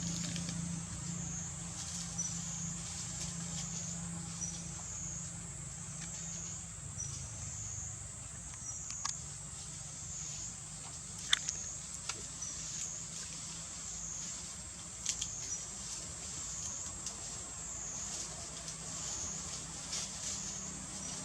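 Steady high-pitched insect drone that swells and fades in slow waves, with a low hum beneath and scattered sharp clicks, the loudest about eleven seconds in.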